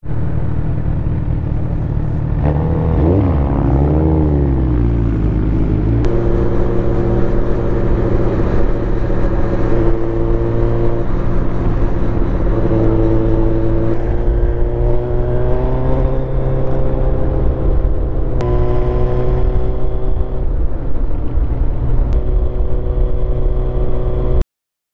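Sport motorcycle engine under way: it revs up and down for a few seconds, then runs at a steady cruise whose pitch steps to new levels several times, over a constant rush of wind and road noise. The sound cuts off abruptly near the end.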